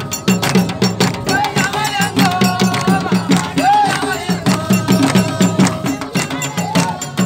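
Traditional folk music: fast, steady drumming with a high melody line held and sliding above it.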